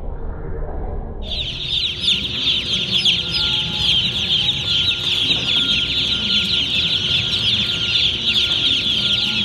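A low rumble, then about a second in a large batch of baby chicks starts peeping all at once inside their ventilated shipping box: a dense, steady chorus of overlapping high cheeps.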